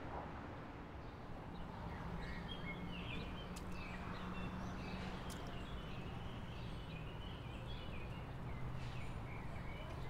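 Quiet ambient background noise with a low steady hum and small birds chirping repeatedly from about two seconds in.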